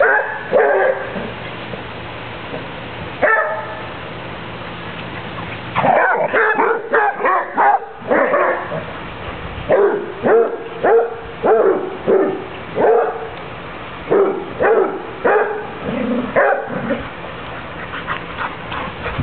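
Dogs barking while they chase each other in play. A few barks come at first, then a quick flurry, then a long steady run of about two barks a second.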